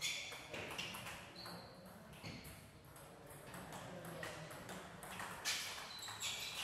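Table tennis rally: the ball clicks off the rubber paddles and bounces on the table in a string of sharp, irregularly spaced pings, the loudest about five and a half seconds in.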